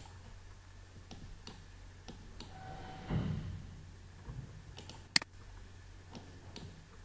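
Computer mouse buttons clicking a few separate times, with one sharper click about five seconds in, over a faint steady low hum. There is a soft low rumble about three seconds in.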